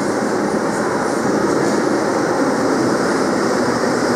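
Tram arriving in an underground station, its wheels and running gear making a steady rumble on the rails.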